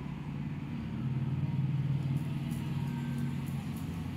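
A low, steady engine-like rumble with a hum in it, growing louder about a second in and easing off near the end.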